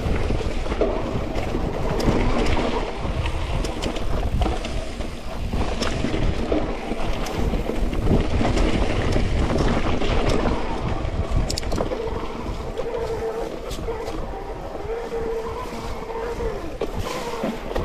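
Hardtail mountain bike ridden over a wet, muddy trail: wind rushing over the microphone, tyres rolling with a low rumble, and the bike rattling with many sharp clicks and knocks over rough ground. A faint wavering whine sounds for a few seconds near the end.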